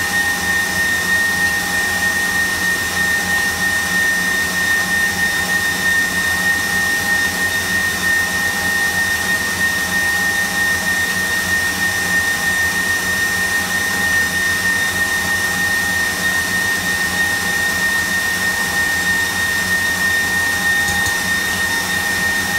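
KitchenAid Professional 600 stand mixer running steadily at speed 4, its wire whip beating a foamy egg-and-sugar sponge-cake batter, with a constant high motor whine.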